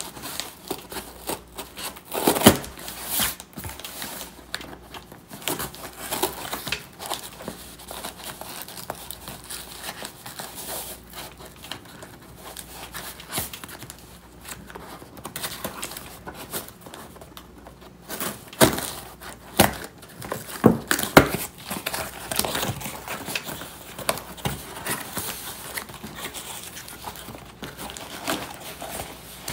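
Scissors cutting and tearing the packing tape on a cardboard box, then the cardboard flaps being pulled open and foam packing handled: irregular crinkling, tearing and scraping, with louder sharp bursts a couple of seconds in and again around two-thirds of the way through.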